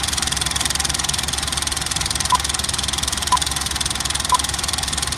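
Film projector clatter, a fast steady mechanical rattle, with short single-pitch countdown beeps once a second, three of them from a little over two seconds in.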